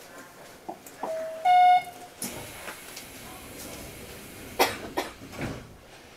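A two-note electronic chime about a second in: a short lower tone, then a louder, higher one. A hiss follows, and two sharp knocks come near the end, with the train standing at a platform.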